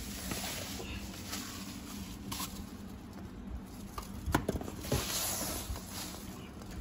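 Wood-shaving bedding rustling and scraping as a hand covered with a plastic bag scoops and spreads it, with a louder cluster of scrapes about four to five seconds in.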